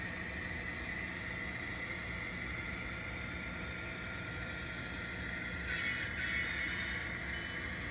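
Sound-equipped N scale model diesel locomotive running, its engine sound playing steadily from the tiny onboard speaker, with a brief louder hiss about six seconds in.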